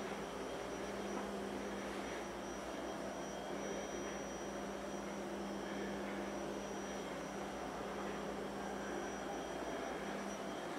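Steady background hum and hiss, with a low hum and a faint high whine that do not change; no distinct events.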